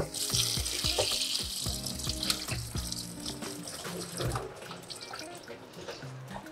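Tap water running into a kitchen sink as food is rinsed under it, shutting off about four seconds in, with a few small knocks of handling.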